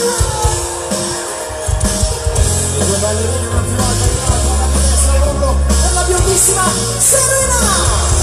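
Live band music over a PA system, with a singer, a strong bass line and bright cymbals.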